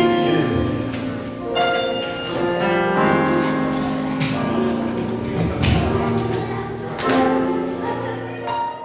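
Church music: sustained chords with a few struck accents, cut off abruptly at the very end.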